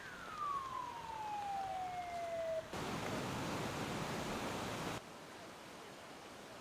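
Emergency vehicle siren wailing downward in pitch, cut off abruptly after about two and a half seconds, then a steady rushing noise.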